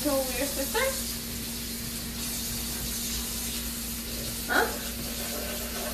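Kitten mewing: a few short calls in the first second and one rising mew near the end, over a steady hiss.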